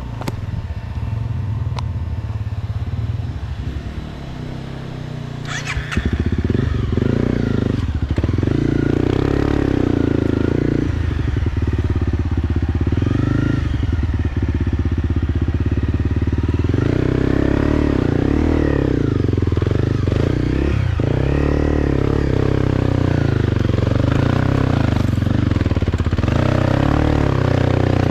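Motorcycle engine running while riding. It gets louder about six seconds in, and the engine note rises and falls from then on.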